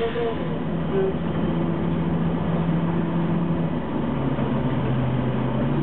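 Ikarus 280 city bus's diesel engine running under way, heard from inside the bus over steady road noise. The engine note drops to a lower pitch about four seconds in as the revs fall.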